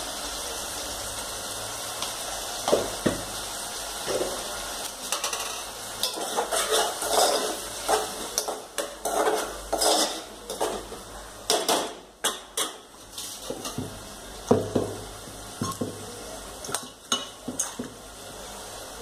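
Metal spoon stirring and knocking in a stainless steel cooking pot, with repeated clinks of steel utensils against pots and lids over a steady hiss.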